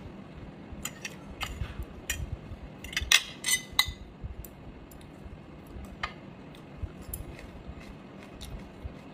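A metal fork clinking against a plate in scattered sharp ticks, with a quick cluster of clinks about three seconds in as it is laid down, and soft chewing between.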